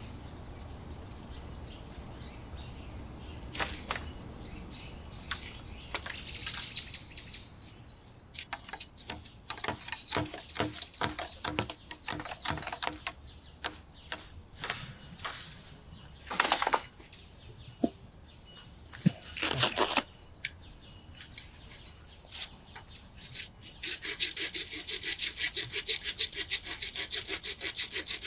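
Irregular rustling and scraping as branches or gear are handled, over a steady high insect drone at first. About four seconds before the end, a hand saw starts cutting wood in quick, even strokes.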